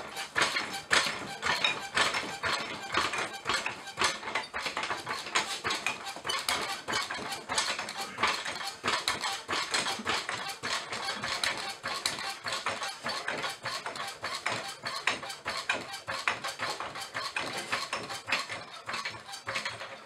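A 4-ton hydraulic floor jack being pumped by its long handle, a steady run of sharp metal clicks and clinks with each stroke, as it lifts the front of a zero-turn mower.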